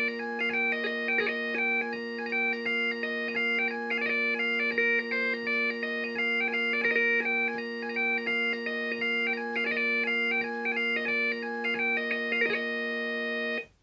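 Bagpipes playing a brisk hornpipe, a quick-changing chanter melody over steady drones. The tune ends on a held note, and the pipes cut off about a second later.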